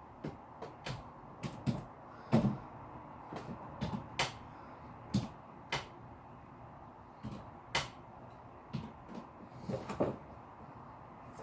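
Irregular sharp knocks and clacks of varying loudness, a couple or so a second, over a faint steady noise.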